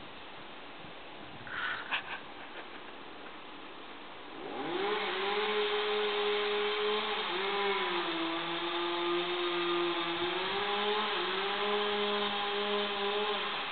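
Chainsaw revs up about four and a half seconds in and runs steadily at high speed, its pitch dipping briefly twice, then drops off near the end. Before it starts there is only faint background noise with a couple of small knocks.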